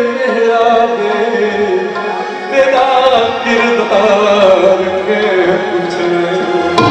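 Male folk singer holding a long, ornamented vocal line that slides slowly down in pitch over a steady held accompaniment note, in a live Punjabi folk song; tabla strokes come back in near the end.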